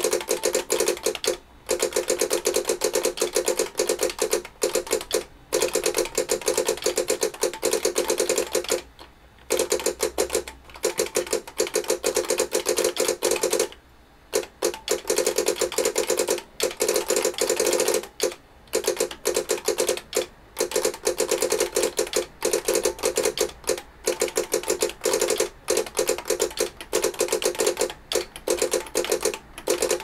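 Fast typing on a computer keyboard: a dense run of key clicks in bursts, broken by a few short pauses.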